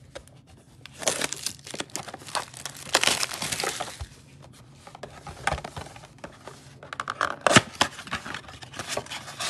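Plastic shrink wrap crinkling and tearing off a cardboard trading-card box, then the box being opened and foil card packs rustling as they are pulled out. The crinkling is densest in the first few seconds, with a few sharp, loud crackles near the end.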